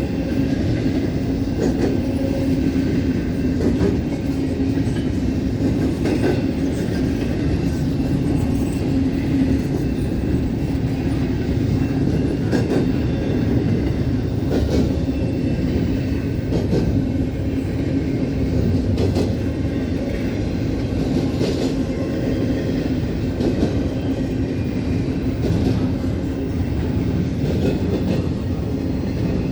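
Long CSX intermodal freight train's cars rolling past at speed: a steady rumble of wheels on rail, with scattered clacks as the wheels cross rail joints.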